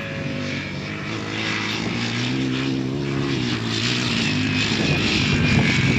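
Off-road motorcycle engine running, a steady drone whose pitch rises a little about halfway through and then settles back.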